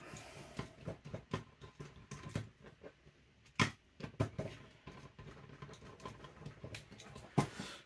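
Small clicks and taps of hands handling an airsoft gearbox shell and its screws on a tabletop, with a sharper click about three and a half seconds in and another near the end.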